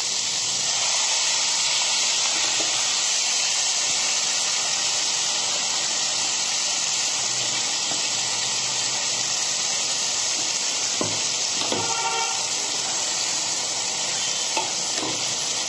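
Diced onion and capsicum frying in oil and butter in a kadai, giving a steady sizzle, while thick onion-tomato masala paste is poured in over them. There are a couple of brief knocks near the end as the paste is scraped from the mixer jar.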